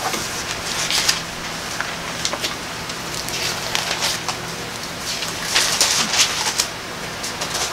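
Thin Bible pages being turned: a series of short, crisp paper rustles over a steady background hiss and low hum.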